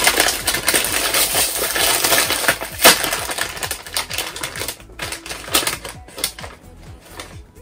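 Foil-lined crisp packet crinkling and rustling as it is torn open and a hand rummages inside. There is one sharp, loud crackle about three seconds in, and the crinkling thins out after that.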